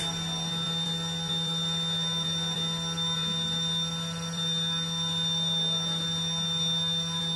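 Steady electrical hum of a powered-up CNC machining center: a low drone with a few fixed higher tones, unchanging throughout.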